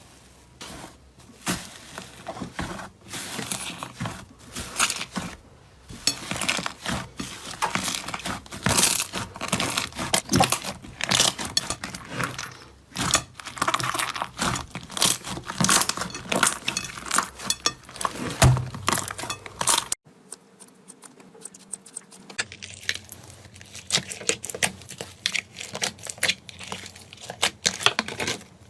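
Slime being squeezed and pressed by hand, making a dense run of clicks and crackles. About two-thirds of the way in the sound cuts to a quieter stretch of sparser clicking.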